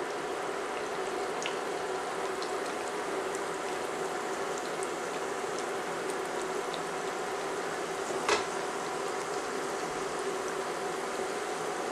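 Beef pastelillos (fried meat pies) frying in shallow hot oil in a skillet: a steady sizzle with small scattered pops, over a faint steady hum. A single sharp clack about eight seconds in.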